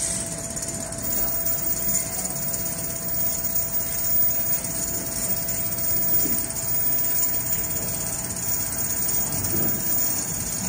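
Richpeace automatic furniture sewing machine running, its gantry sewing head stitching through a large padded head-bed panel: a steady fast mechanical chatter with a thin high whine.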